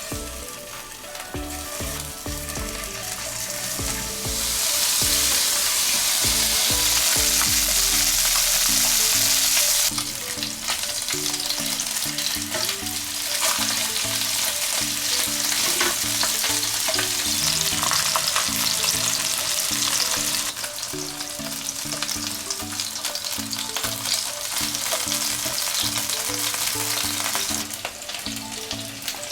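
Food sizzling and frying in a pan, loudest for several seconds early on, with background music playing underneath.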